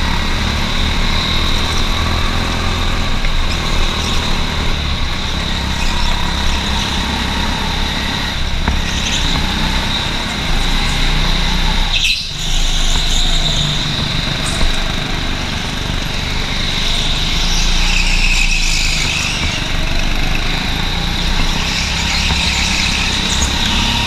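Go-kart engine running at speed, heard from the driver's seat, with a sudden short break about halfway through.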